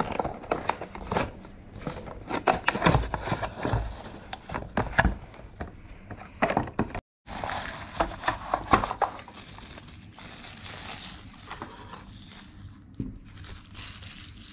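Packaging being opened: a cardboard box's tear strip pulled and the box handled, with rapid crackles and knocks. After a brief break about halfway, thin plastic wrapping crinkles and rustles as it is pulled off.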